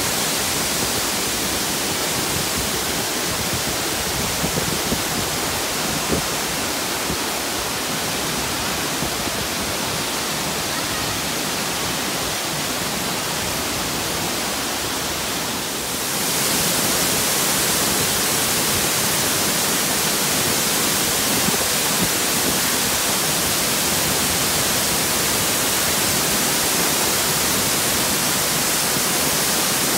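Steady rush of water cascading down a rocky mountain stream and waterfalls. About halfway through it changes abruptly to a louder, hissier rush of water falling close by.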